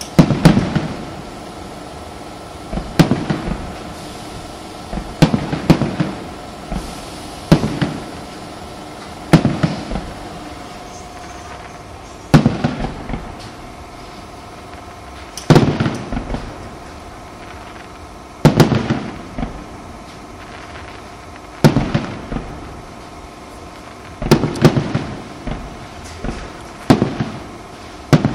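Aerial firework shells bursting overhead: a loud, sharp bang every two to three seconds, some coming in quick clusters of several bangs with a short spatter of crackling after them.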